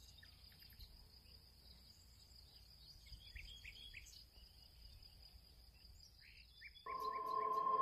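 Faint background of a steady, high insect drone with scattered short bird chirps. Music comes in near the end.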